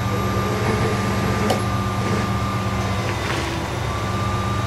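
Heavy vehicle's engine idling: a steady low hum with a thin steady whine above it, and a faint tick about one and a half seconds in.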